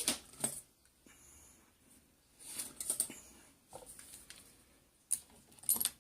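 Scattered small clicks and rattles of a padlock and screwdriver being handled, in several short clusters with quiet gaps between.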